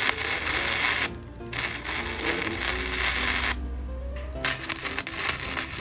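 Gasless flux-cored semi-automatic welder arc crackling in three bursts of one to two seconds each, with short pauses between, as weld is built up to fill a gap.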